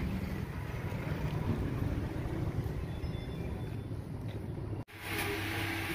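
Wind buffeting the microphone: a steady low rumble. It breaks off abruptly near the end and gives way to a lighter hiss with a faint steady hum.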